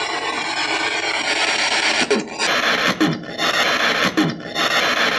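P-SB7 spirit box sweeping through radio frequencies, giving steady loud static. From about two seconds in, the static chops out roughly once a second, with a short falling tone at each break. The investigators caption one of the fragments as a spirit answering "I do".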